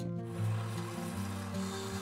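Background music: a run of held notes that move to a new pitch every fraction of a second.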